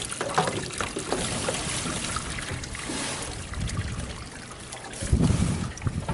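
Water trickling and pouring into an aluminium boat hull through its open drain-bung holes, the boat flooding after the bungs were pulled. A few sharp clicks come in the first second or so, and a louder low rumble sets in about five seconds in.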